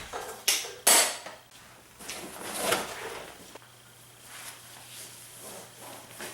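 Two sharp knocks close together, then a longer clatter about two to three seconds in, followed by a few faint light taps.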